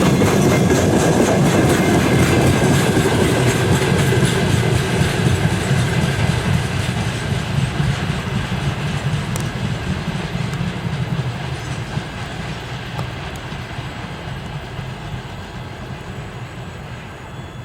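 Freight train wagons rolling past, wheels clacking over the rail joints, the noise fading steadily as the train draws away.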